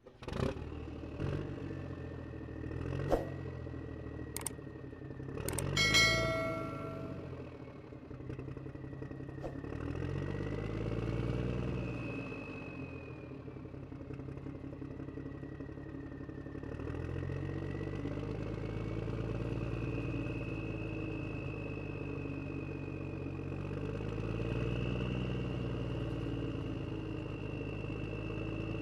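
Radio-controlled model construction vehicle running, its motors whining and sliding up and down in pitch as it works. There are a few sharp clicks in the first seconds, and a short electronic tone about six seconds in.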